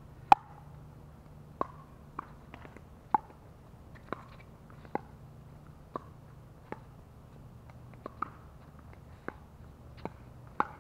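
Pickleball rally: the hollow plastic ball popping off hard paddles and the court, about a dozen sharp pops roughly a second apart, the first the loudest.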